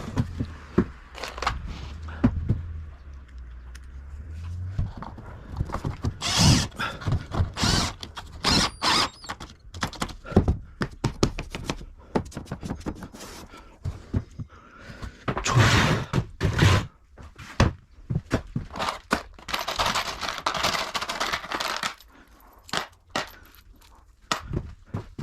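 Irregular knocks, clatters and clinks of tools and plywood ceiling panels being handled, with two longer scraping stretches near the middle and later on.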